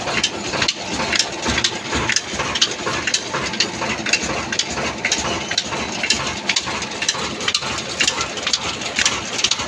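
A large 26 hp stationary diesel engine running steadily, driving belts and pulleys on a line shaft. A dense, irregular clatter of clicks sits over a continuous rumble.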